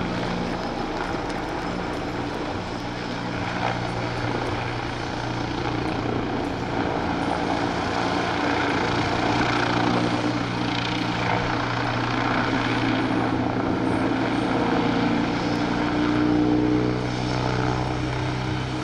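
AgustaWestland A129 Mangusta attack helicopter flying overhead, its main rotor and twin turboshaft engines giving a steady drone that grows louder from about halfway through.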